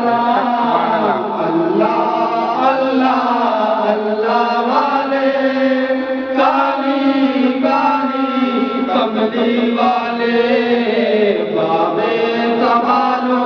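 Group of men chanting an Islamic devotional salawat together in long, drawn-out melodic lines, led by one voice singing into a microphone.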